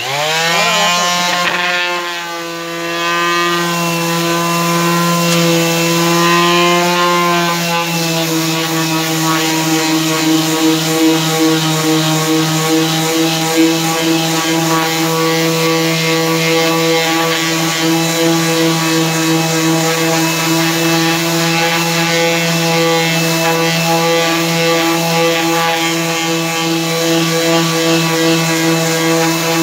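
A 240-watt electric orbital sander switched on and spinning up in the first second or so, then running with a steady hum while its pad sands a board of tomato-crate wood.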